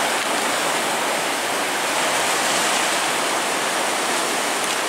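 Sea swell surging and foaming around shoreline rocks: a steady rush of whitewater.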